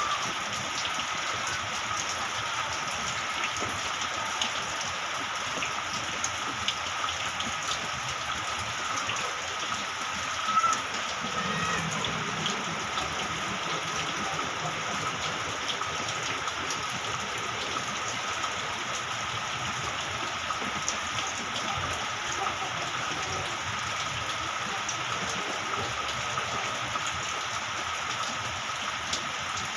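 Steady rain falling, with many small drop ticks on a hard surface. One brief louder hit comes about ten seconds in.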